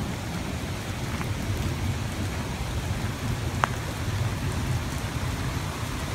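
Heavy rain falling steadily onto a flooded paved driveway, an even hiss. A single brief click sounds about three and a half seconds in.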